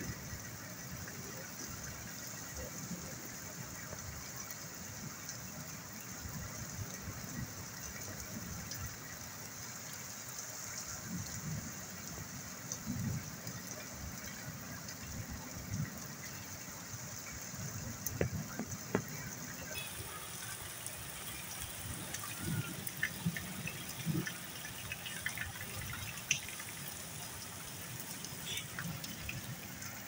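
Steady rain falling, an even hiss of water, with a few short sharp ticks in the second half.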